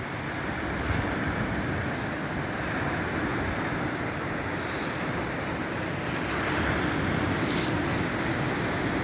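Steady wind and surf noise on a beach: waves washing on the shore and wind on the microphone, swelling a little about two-thirds of the way through.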